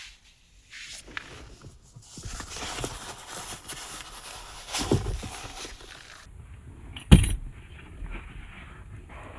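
Someone getting into a car: shuffling and handling noises, a thud about five seconds in and a sharp, louder knock about seven seconds in, like a car door. From about six seconds on the sound is duller, as inside a closed car cabin.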